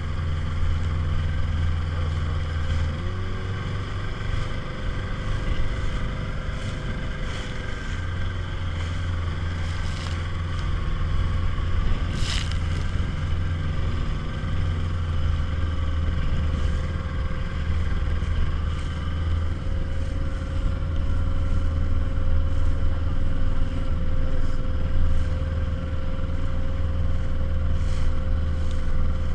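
Small motorboat's outboard engine running steadily, its pitch shifting about three seconds in. A single sharp click near the middle.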